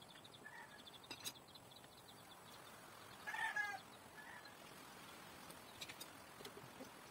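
A short animal call about three seconds in, the loudest sound, with a couple of fainter calls around it, over quiet yard background with a few light clicks of tools on the bike.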